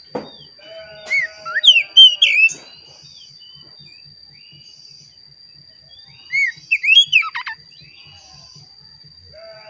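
Oriental magpie-robin (kacer) singing in two loud bursts of whistled, sliding notes, about a second in and again about six seconds in. This is the kind of song used as a lure to set other magpie-robins singing.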